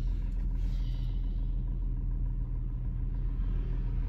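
Car engine idling, heard from inside the cabin as a steady low hum.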